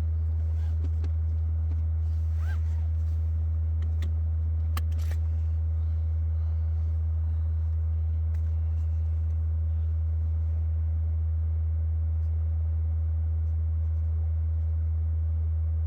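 Steady 80 Hz sine test tone from a tone generator playing through a truck's subwoofer, used to measure the stereo's speed-sensitive volume; a few faint clicks sound in the first five seconds.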